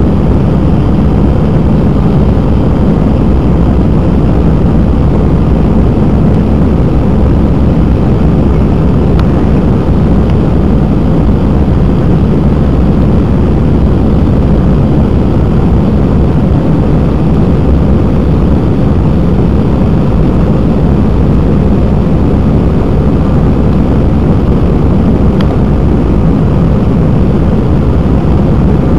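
Steady cabin roar inside an Airbus A319-111 in flight: engine and airflow noise from its CFM56 turbofans, heard from a window seat over the wing.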